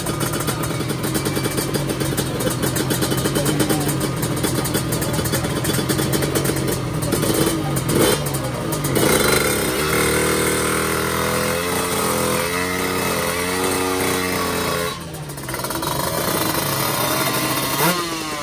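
A drag-racing motorcycle's engine is revved hard at the start line in choppy blips for the first half. It is then held high with its pitch wavering, eases off briefly about fifteen seconds in, and rises sharply again near the end.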